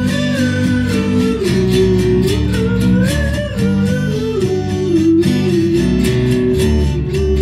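Music: strummed guitar accompaniment with a held melody line over it that glides between long notes.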